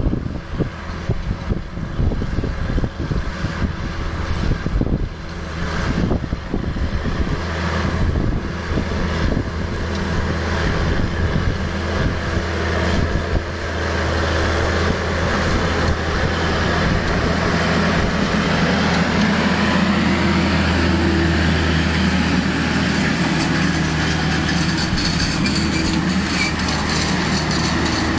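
Fendt 926 Vario TMS tractor's six-cylinder diesel engine running steadily under load while pulling a Väderstad Carrier 620 disc harrow through stubble, growing louder as the tractor draws near from about halfway in. Gusts of wind buffet the microphone during the first few seconds.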